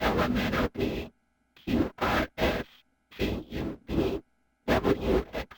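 White noise vocoded by a recorded spoken voice in an Expert Sleepers Disting Mk3 vocoder: an unpitched, hissing voice-like sound in short word-like bursts with brief gaps between them.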